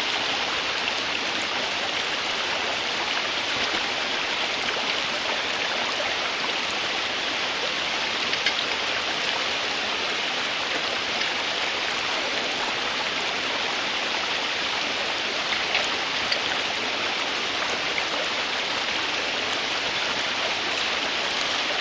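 Small forest creek spilling over a log ledge in a little waterfall: a steady rush of running water, loud and close.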